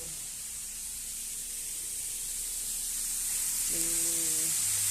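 Chili, onion and spice paste frying in a little oil in a pan: a steady sizzle that grows louder. A brief low hum is heard near the end.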